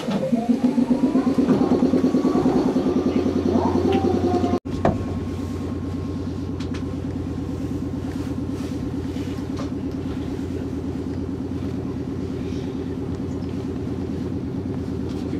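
Air compressor of a 113 series electric train running, a rapid, even chugging pulse. It is louder for the first few seconds, breaks off for an instant, then goes on steadily.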